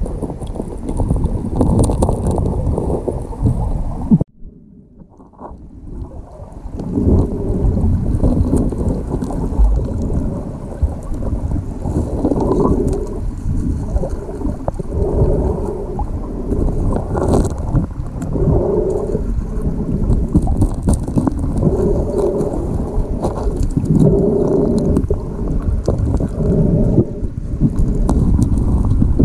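Underwater sound of a fast-flowing river heard through a waterproof action-camera housing: a dense, muffled rush with scattered small knocks as a hand digs among riverbed stones. The rush drops away for about two seconds around four seconds in, then builds back.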